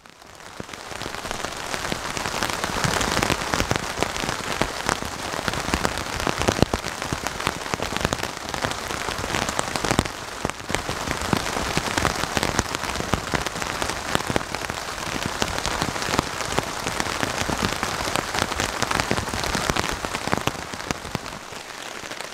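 Heavy rain falling steadily, with many separate drops striking close by. It fades in over the first second.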